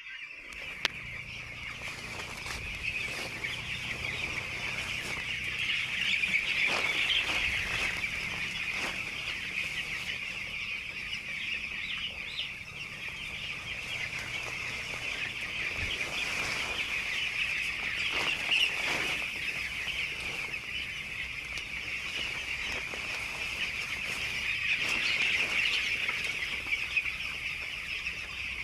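A flock of young poultry chicks peeping all at once: a dense, unbroken chorus of high cheeps, with scattered short clicks mixed in.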